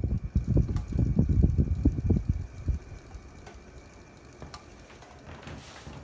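Hampton Bay Gazebo Plus 52-inch ceiling fan running on high, its blade draft buffeting the microphone in gusty low rumbles. The rumbles stop a little under three seconds in, leaving the fan's quieter steady whir.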